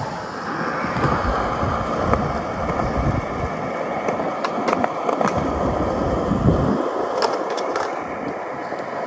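Skateboard wheels rolling on concrete: a steady rumble and hiss, with a few sharp clacks a little past halfway. The low rumble drops away about two-thirds through.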